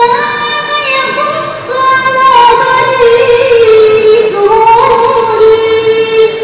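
A young girl's voice reciting the Qur'an in melodic tartil style through a microphone and loudspeaker, holding long notes and gliding slowly between pitches.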